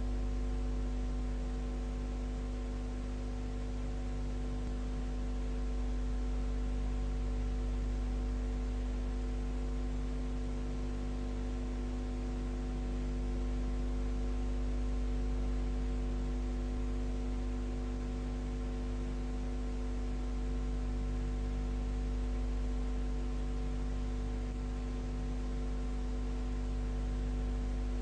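Steady electrical mains hum with an even layer of hiss. Nothing else is heard.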